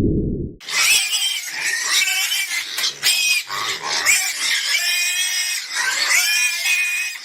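Pigs squealing, a continuous run of high-pitched calls starting about half a second in.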